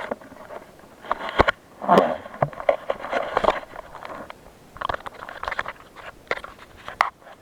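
Footsteps crunching in snow, with irregular scraping and crackling and a few sharp knocks, as a person makes his way through deep snow to a buried beaver trap.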